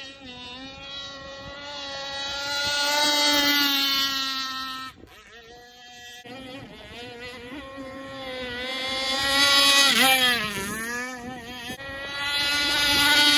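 29cc two-stroke gasoline engine of an RC speedboat running at high revs, its note rising and falling as the boat speeds about. It drops away about five seconds in, then builds again and is loudest around ten seconds in and near the end.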